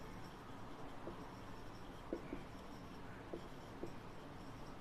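Marker pen writing on a whiteboard: faint, short strokes and taps of the felt tip as words are written out.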